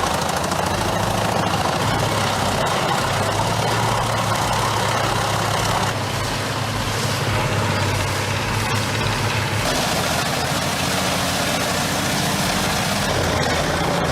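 Large industrial wood chipper running under a heavy engine, a steady drone under a broad wash of machine noise. The sound shifts about six seconds in and again near ten seconds.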